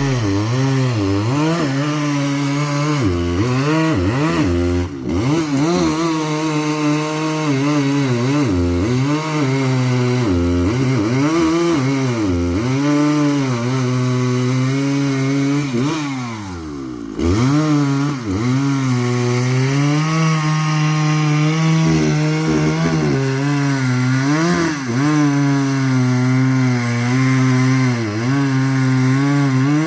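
Two-stroke chainsaw cutting through wood, its engine pitch wavering up and down as the chain bites and frees. About halfway through the engine slows sharply, then picks back up and keeps cutting.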